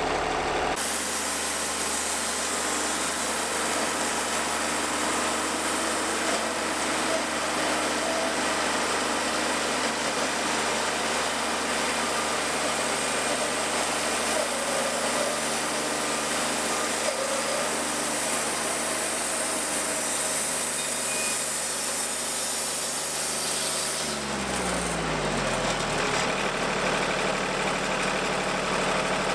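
Engine of a Wood-Mizer portable band sawmill running steadily. About 24 seconds in it winds down, its pitch falling, then runs on at the lower speed.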